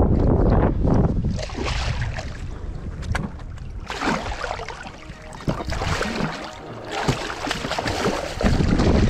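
Large northern pike thrashing at the surface beside a boat, water splashing in irregular surges. Wind buffets the microphone with a low rumble near the start and again near the end.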